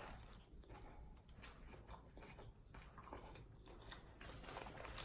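Faint close-up chewing of a mouthful of food, with soft wet mouth clicks and smacks at an irregular pace.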